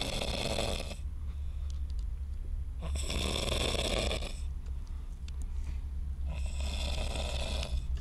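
A man snoring heavily while passed out drunk: long, rasping snores about every three and a half seconds, one ending about a second in and two more starting at about 3 and 6 seconds.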